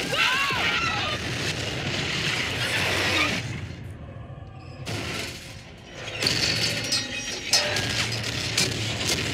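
Film soundtrack of a freight train derailment: explosions and crashing, shattering wreckage under music, with a couple of sharp impacts near the end.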